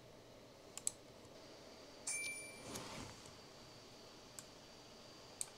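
Faint computer mouse clicks over quiet room tone: a quick pair about a second in and single clicks later. About two seconds in, a brief high-pitched electronic tone sounds, and a faint steady high whine sits underneath.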